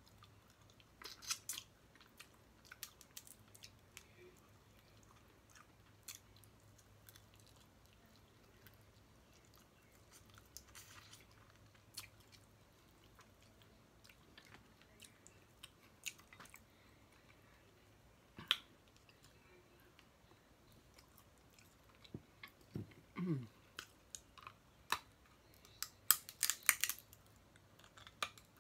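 Someone eating snow crab legs: quiet chewing with scattered sharp cracks and clicks of the shells being broken and picked, coming in a quick run near the end. A short low sound falling in pitch comes about two-thirds through.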